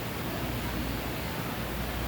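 A sleeping man breathing between snores, under a steady hiss with a low rumble that swells and eases about every second and a half.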